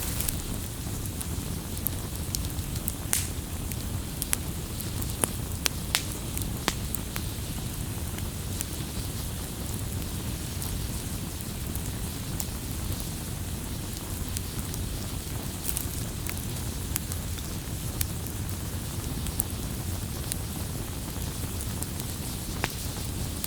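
Wood fire burning: a steady low rush of flames with sharp crackles and pops scattered through, coming most often in the first several seconds.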